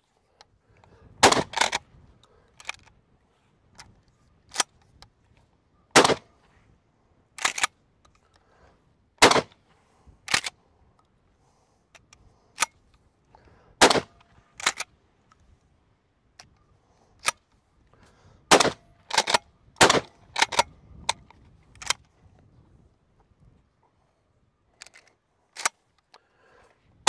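Rock Island All Gen 12 pump-action 12-gauge shotgun firing a string of shots a few seconds apart, about six loud blasts, with the sharp clack of the pump being worked between them. A quieter stretch late on is broken by a few more metallic clicks.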